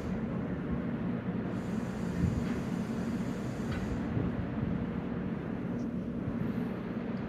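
Steady low mechanical hum of marine engines running, with a rumble underneath and one brief knock about two seconds in.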